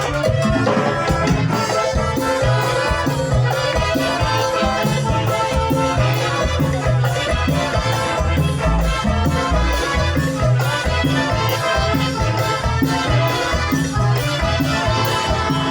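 Live Latin dance band playing an instrumental passage, with a steady beat and maracas.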